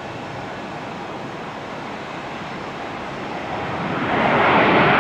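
Jet airliner engines: a steady rushing noise that swells sharply about four seconds in as the aircraft comes close.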